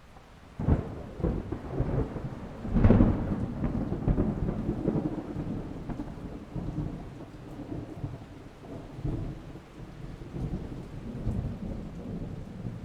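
Close thunder: a sudden crack about half a second in, a louder clap near three seconds, then a long low rumble that slowly fades.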